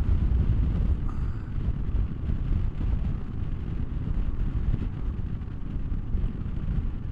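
Motorcycle ride on a Honda SCL500: wind rushing over the microphone mixed with the bike's 471 cc parallel-twin engine, running steadily at road speed.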